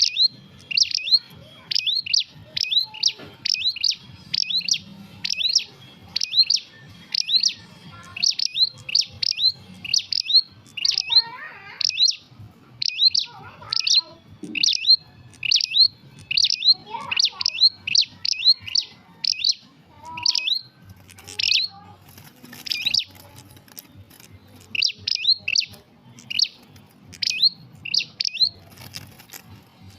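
Prinia (prenjak) calling: a fast, steady series of short, high chirps, about two a second, with a brief pause a little past two-thirds of the way through.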